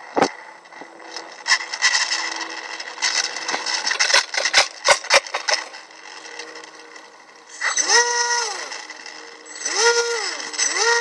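Scattered sharp knocks and rustling in the first half, then two short bursts of a model plane's electric motor whine, each rising in pitch, holding and falling again as the throttle is opened and closed, one about two-thirds of the way in and one near the end.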